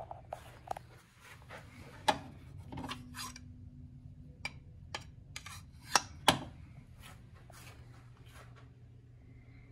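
Rubbing and scuffing handling noises with a series of sharp knocks and clicks, the loudest about two seconds in and twice around six seconds, over a steady low hum in a small room.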